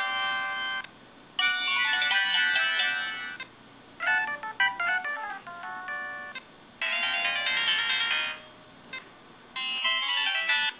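Short electronic sound effects played in turn from an IM-6100 mobile phone: five brief chiming, ringtone-like melodies, each lasting a second or two, separated by short pauses.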